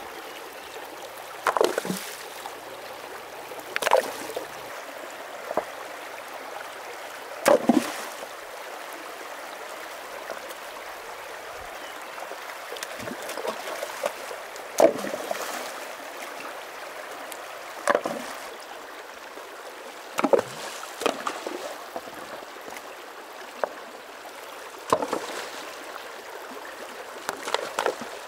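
Shallow rocky stream running steadily, broken every few seconds by sudden splashes and stone clunks, about a dozen in all, as rocks are lifted, moved and dropped in the water by hand and bare feet wade through it.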